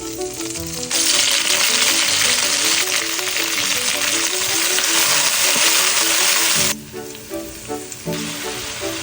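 Food sizzling loudly in hot oil during a stir-fry, starting suddenly about a second in and dropping away sharply near the end to a fainter sizzle. Background music plays underneath.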